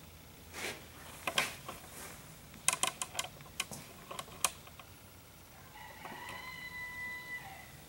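Scattered light clicks and knocks of objects being picked up and moved while rummaging around a workshop. Near the end comes a faint, high, squeak-like tone held for about a second and a half.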